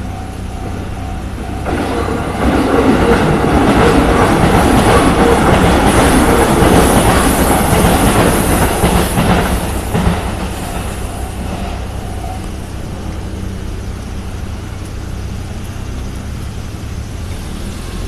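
A Japanese level crossing's warning bell rings in a steady repeating pulse. From about two seconds in, a JR Nambu Line train passes through the crossing, loud and clattering, and fades out around ten seconds. The bell rings on briefly after it and then stops as the crossing clears.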